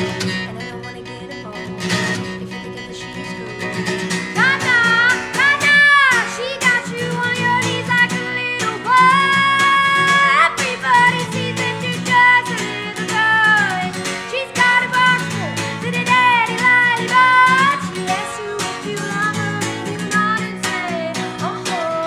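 Solo acoustic guitar being strummed, joined about four seconds in by a woman's sung melody with wavering, sustained notes.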